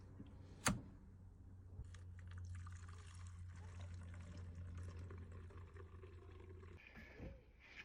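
Two-stroke fuel mix being poured into the empty fuel tank of a Homelite Super 2 chainsaw: a sharp click about a second in, then a steady pour for about five seconds that stops abruptly.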